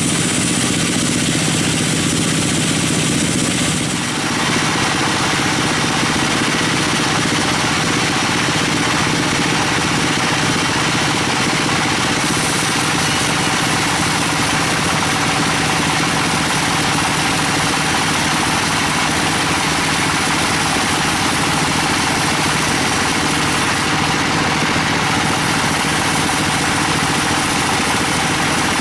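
Sawmill machinery running with a steady engine drone; about four seconds in a harsher, hissier noise joins it and holds steady to the end.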